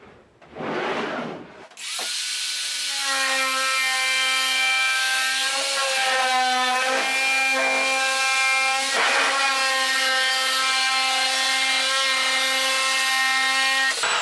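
A handheld electric metal-cutting tool cuts a traced line through aluminium sheet. After a brief rustle of the sheet, the motor spins up with a rising whine about two seconds in and runs at a steady high pitch. Its pitch sags briefly a few times as it bites, and it stops abruptly near the end.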